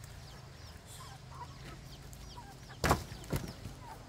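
Chickens clucking, with many short high falling calls throughout, and two sharp knocks about three seconds in, half a second apart.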